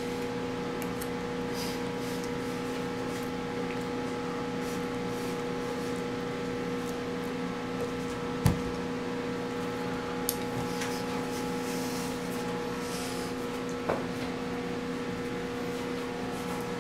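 Eating sounds over a steady low hum: a few light clicks and one sharper knock about eight and a half seconds in, with faint rustles between.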